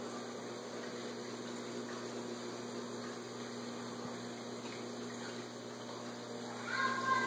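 Steady electric hum of an aquarium filter pump, with a faint wash of moving water. A brief higher-pitched tone sounds near the end.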